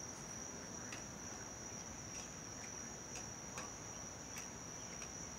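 Faint, steady, high-pitched trilling of insects, with a few faint ticks about a second apart.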